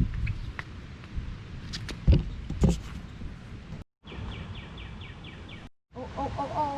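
Outdoor background with a low rumble and a few sharp knocks about two seconds in, and a bird's short rapid trill of about seven notes near the middle. The sound cuts out completely twice for a moment.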